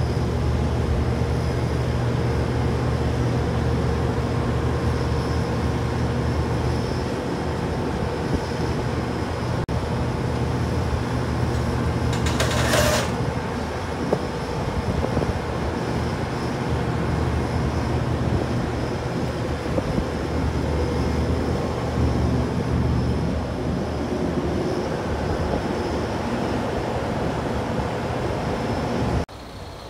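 Liebherr 984 crawler excavator's diesel engine running steadily as the machine works its way onto a lowbed trailer, with a short hiss about halfway through. The sound cuts off abruptly near the end.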